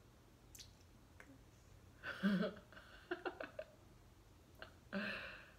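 Two short murmured vocal sounds from a person, about two seconds in and again near the end, with a few soft clicks between them.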